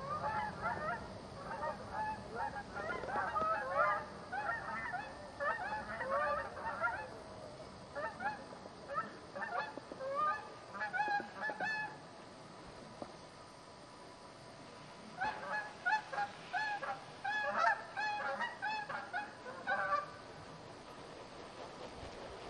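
A flock of Canada geese honking in flight, many calls overlapping at once. The calling thins out and nearly stops for a few seconds in the middle, then picks up again.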